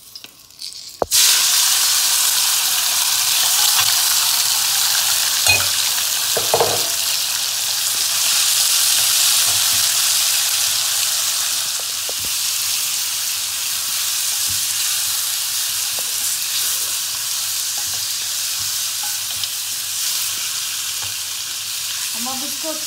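Raw mutton pieces hitting hot oil in a metal karahi: a loud sizzle starts suddenly about a second in and carries on steadily as the meat is stirred with a wooden spoon, with a few knocks in the first several seconds.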